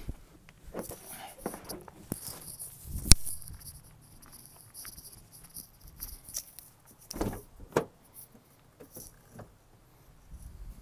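Footsteps crunching on gravel, with one sharp click about three seconds in. A couple of knocks and clunks come later as the rear door of a Ford Transit van is handled and opened.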